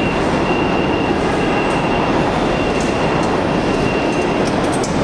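New York City subway train running through the station: a loud, steady rumble with a thin high wheel squeal that stops near the end.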